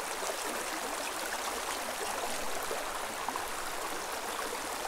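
Steady babbling of a shallow creek running over stones.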